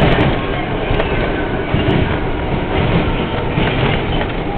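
R42 subway train running on the track, heard from inside the front car: a steady rumble of wheels and motors with a heavier wheel clack over the rail joints every second or so.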